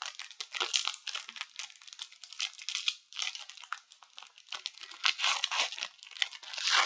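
Crinkling and tearing of a Yu-Gi-Oh! booster pack's foil wrapper being opened and handled. It comes as a dense, irregular crackle, with a brief pause about three seconds in.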